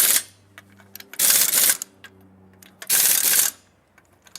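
Pneumatic impact wrench (air gun) on a car wheel's lug nuts, firing in short hammering bursts of about half a second, three times, with a faint low hum between them.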